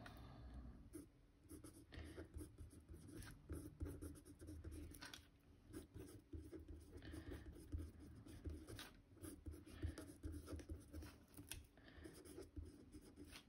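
Pen writing by hand on a postcard: faint, irregular scratching strokes with small ticks as the pen moves and lifts.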